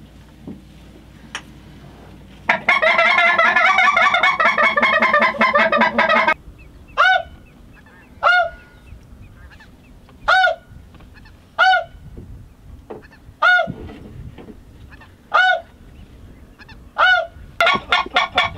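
Goose calling, loud and close: a fast run of honks and clucks for about four seconds, then single sharp honks every second and a half or so, and another quick run starting near the end.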